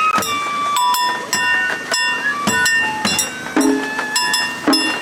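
Rapid, overlapping clinks, each followed by a short ringing tone, at many different pitches.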